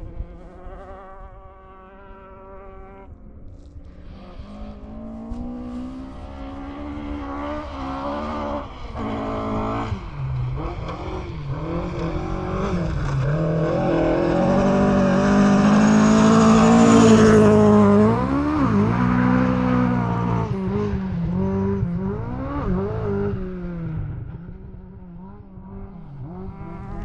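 Rally car engine on a forest stage, revving hard and changing gear as it approaches. It gets louder to a peak as it passes about two-thirds of the way in, then fades into the distance.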